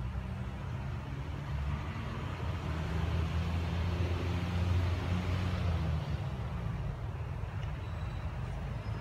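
A motor vehicle passing: a low engine rumble with tyre hiss that swells toward the middle and then fades back to a steady background drone.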